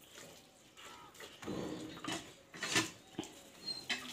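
Cattle making a short, low call about one and a half seconds in, followed by a few scattered short knocks and snorts.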